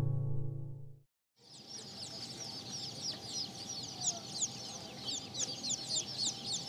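Guitar music fades out within the first second. After a short silent gap, the flock of Spangled Old English Game bantam chickens is heard: many short, high-pitched chirps and peeps overlapping without a break, with soft clucking.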